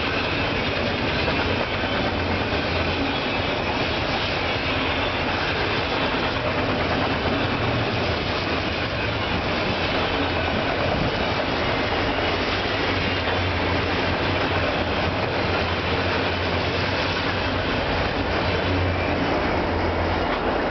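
Freight train of autorack cars passing at high speed: a steady rush of steel wheels on rail.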